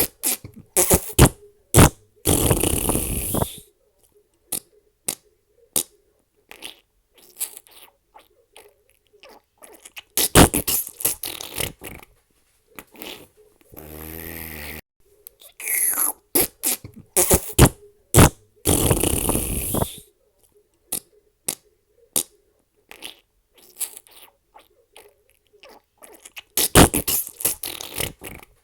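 A rapid string of fart sounds, some short single pops and some drawn out for a second or two, with one low buzzing fart about fourteen seconds in, separated by brief silences.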